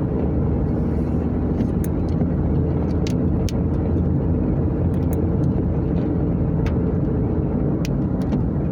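A vehicle's engine and road noise heard from inside the cab, a steady low drone as it climbs a steep grade under throttle in third gear. Faint scattered ticks sit on top.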